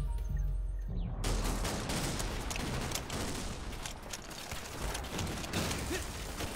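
Battle soundtrack of dense gunfire, many overlapping rifle and machine-gun shots, starting abruptly about a second in as a few notes of music end.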